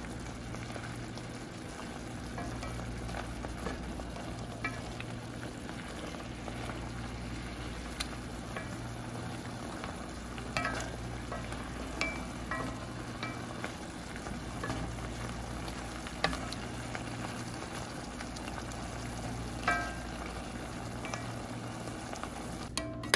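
Pork slices sizzling and bubbling in a boiling soy sauce and lemon marinade in an enamelled pot, stirred with a wooden spatula that knocks against the pot a handful of times, each knock ringing briefly.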